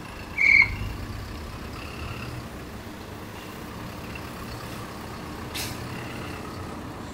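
Small work truck running as it rolls slowly along the railway track, its engine a steady low hum. A short high beep sounds about half a second in, and a brief hiss of air about five and a half seconds in.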